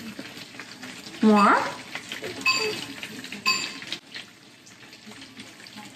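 Breaded catfish frying in oil with a steady sizzle. Two light clinks come through, the first about two and a half seconds in and the second a second later.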